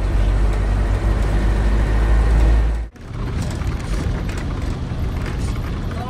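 Vehicle road noise: a heavy, steady low rumble that breaks off abruptly about three seconds in, followed by a lighter rumble and noise.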